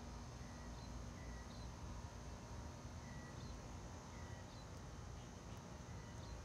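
Quiet outdoor ambience: faint short chirps about once a second over a steady high hiss and a low rumble.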